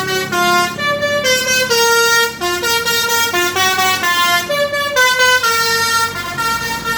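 A bus's multi-tone "telolet" air horn playing a quick tune, stepping from note to note two or three times a second.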